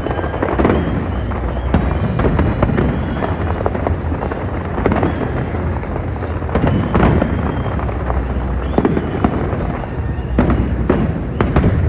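New Year fireworks going off continuously: many overlapping bangs and crackling bursts over a steady low rumble, with sharper single bangs about half a second in, around five and seven seconds in, and twice more near the end.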